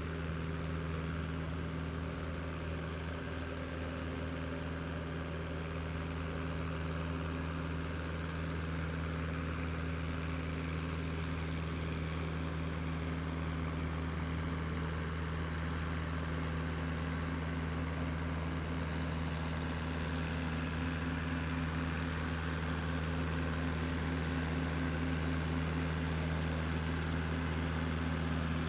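Red IHC farm tractor's engine working under heavy load at a steady speed as it drags a tractor-pulling sled. The note holds steady and grows slightly louder toward the end.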